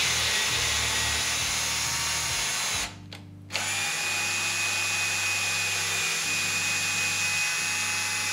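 Cordless drill running on low speed, driving a tap into a metal plate held in a vise to cut a thread. It runs steadily, stops for about half a second about three seconds in, then runs again.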